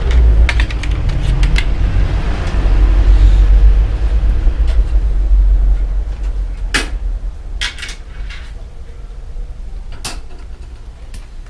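Clicking and a heavy low rumble as the crank of a new BBF bicycle with a loose bottom bracket is rocked in a workshop stand, easing off after about seven seconds. Then three sharp metallic clinks of tools being handled.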